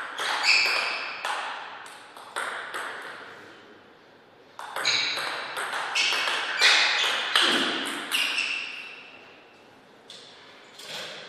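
Table tennis ball clicking back and forth between paddles and table during rallies, a hit about every half second, each click ringing briefly. Two rallies: one through the first three seconds, another from about five to nine seconds in.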